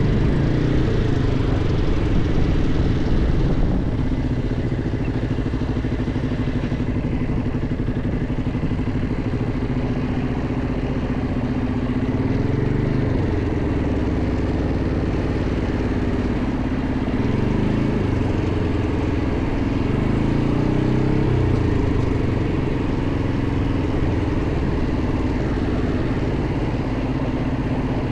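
ATV (quad bike) engine running steadily under the rider, its pitch wavering up and down a few times as the throttle changes.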